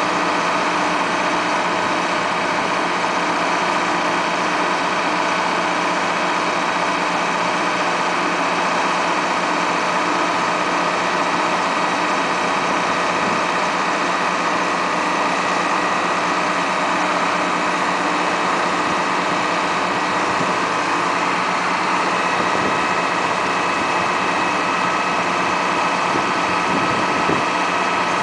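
Caterpillar RT80 telehandler's engine running steadily while the boom is raised and telescoped out, with a thin high tone over the engine note.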